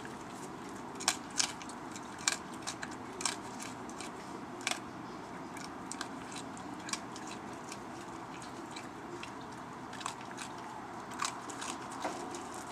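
Raccoon eating dry kernels off a wooden deck: irregular sharp crunches and clicks as it bites and chews, the loudest few in the first five seconds, over a steady low background noise.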